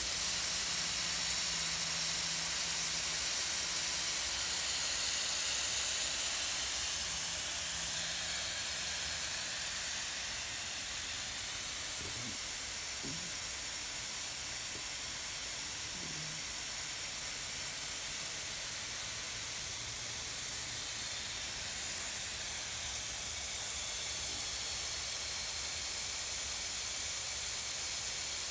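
A steady, high hiss with no words, its source not shown.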